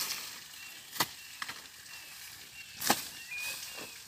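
A hoe chopping into grassy, damp soil while weeding. Several sharp strikes come about a second apart, the loudest near three seconds in, with the scrape and rustle of cut grass between them.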